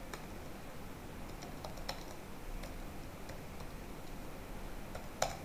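Faint, scattered clicks of a computer keyboard and mouse, about a dozen spread irregularly, with one sharper click near the end.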